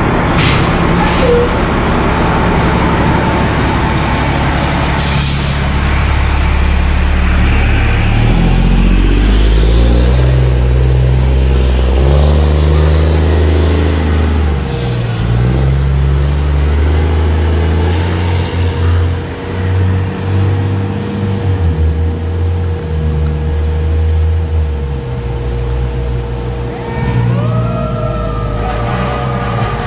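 Fire ladder truck's diesel engine running loud as it pulls away, its pitch stepping up and down, with sharp air-brake hisses in the first few seconds. Near the end a siren begins to rise and hold.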